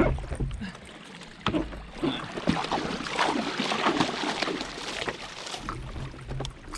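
Water splashing and sloshing at the paddle board, a busy run of splashes lasting a few seconds in the middle.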